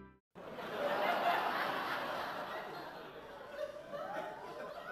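Audience laughter from a laugh track: many people laughing together, swelling about a second in and then slowly fading.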